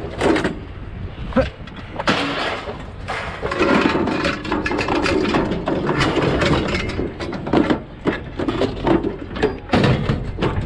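Repeated knocks and clatter of hard objects being handled, with a denser stretch of scraping and rattling in the middle.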